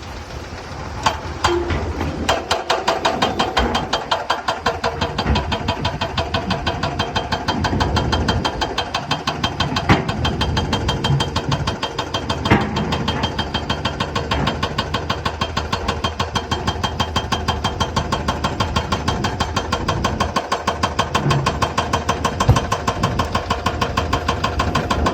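Excavator's diesel engine running with a steady, regular pulsing beat. A few sharp knocks stand out over it.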